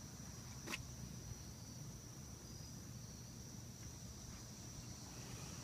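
Faint, steady trilling of crickets over a low hum, with a single sharp click about a second in.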